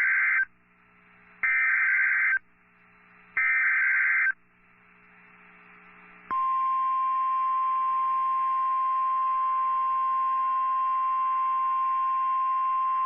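NOAA Weather Radio emergency alert: three roughly one-second bursts of SAME digital header tones about a second apart, then from about six seconds in the steady 1050 Hz warning alarm tone, which marks a warning (here a tornado warning) about to be read.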